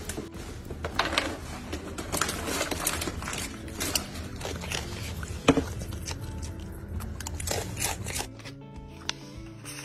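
Background music with many small sharp clicks and scrapes. About eight seconds in the clicks stop and the music goes on more quietly with held notes.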